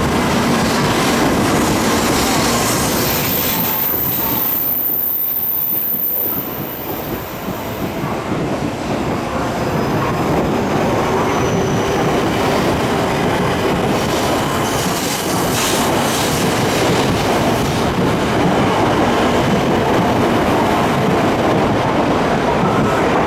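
Tokaido Shinkansen train moving along the platform: a steady rolling noise of wheels on rail, dipping briefly about six seconds in.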